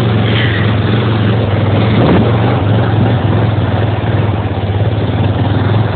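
Four-wheeler (ATV) engine running steadily in second gear while the machine wades across a river, with a constant rushing noise of water around it.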